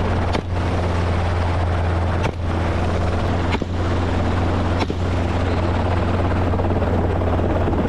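Helicopter in flight: steady, loud rotor and engine noise with a strong low hum. A few brief sharp clicks cut through it.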